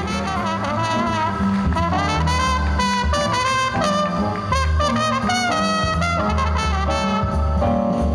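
A big band playing swing jazz: trumpets, trombones and saxophones in full section over upright bass and drums.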